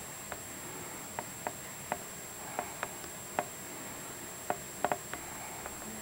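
Meltwater dripping from melting icicles and roof snow: about a dozen sharp drips at irregular intervals, several coming close together in the second half.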